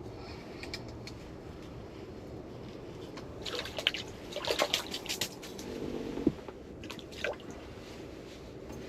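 Water splashing and dripping at an ice-fishing hole while a just-caught fish is handled, with a few small clicks and knocks. The sounds come in short bursts, most of them from about three and a half to five seconds in and a few more around seven seconds.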